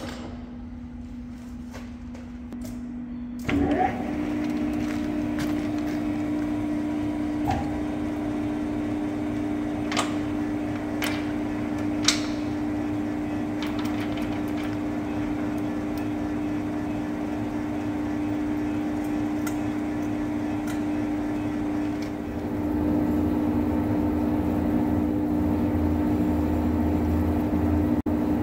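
Metal lathe running with a steady mechanical hum that starts about three seconds in, with a few sharp clicks around the middle. The sound grows louder and deeper near the end.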